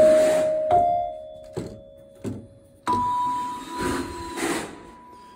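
Skinner organ harp stop played note by note, its strikers hitting the bars, which ring and die away slowly: a note at the start, a slightly higher one under a second in, and a higher note about three seconds in that rings on. A few light knocks near the end.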